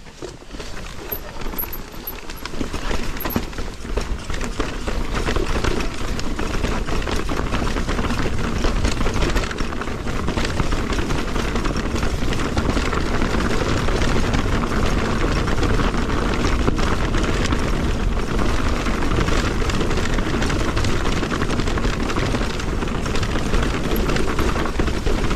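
Mountain bike riding down a rough, rocky trail: wind noise on the camera microphone over tyre roar, with many small knocks and rattles from the bike on the rocks. It builds over the first few seconds as speed picks up, then holds steady.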